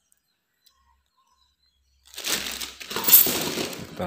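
Silence for about two seconds, then clear plastic wrapping and cardboard packaging crinkling and rustling as a plastic-bagged unit is handled and set back into its box, loudest about three seconds in.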